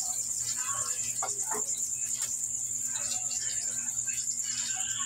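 Crickets trilling steadily in a continuous, high-pitched shimmer, with scattered small clicks and mouth noises as boiled breadnut seeds are shelled by hand and bitten.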